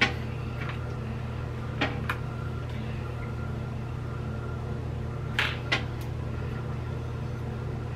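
A few light, sharp clicks and taps over a steady low hum: one at the start, two about two seconds in, and a close pair about five and a half seconds in.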